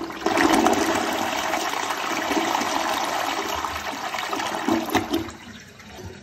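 A 2021 Kohler Cimarron round-front toilet flushing: a long rush of water swirling down the bowl, with a few louder gurgles about five seconds in as it empties. The flush then dies down to a quieter trickle.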